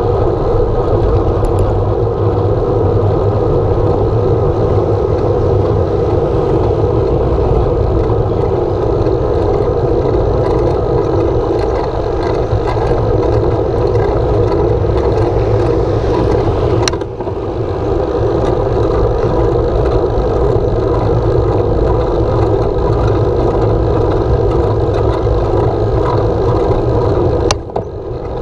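Steady road noise of riding at speed: tyre rumble on asphalt and wind buffeting the microphone. It briefly dips with a sharp click about two-thirds of the way in, and there are a few knocks as it drops near the end.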